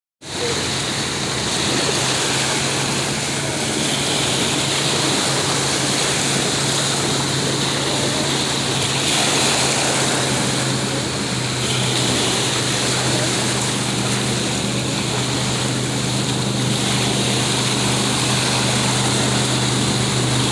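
Motorboat engine running with a steady low hum, under a constant hiss of wind and water.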